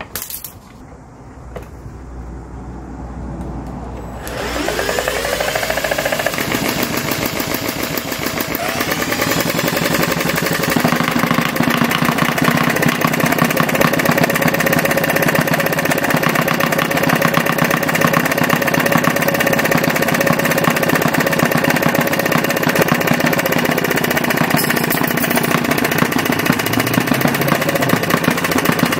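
Retrol 16cc model diesel stationary engine, a compression-ignition engine with mechanical fuel injection, picking up about four seconds in and speeding up over the next several seconds, then running steadily at a fast, even beat.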